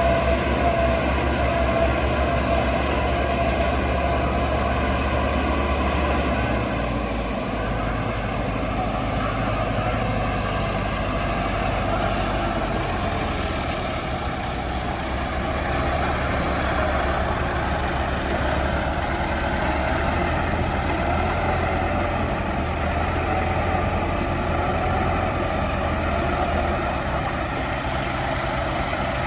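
Heavy diesel tractor engines running under load, a continuous low drone with a faint steady whine above it; the low drone eases about seven seconds in and builds again a few seconds later.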